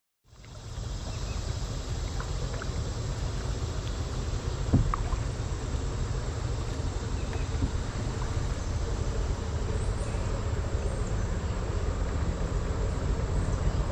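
Wind rumbling on the microphone of a camera mounted on a kayak gliding on calm river water, with a faint insect buzz from the trees. There is a single sharp knock about five seconds in.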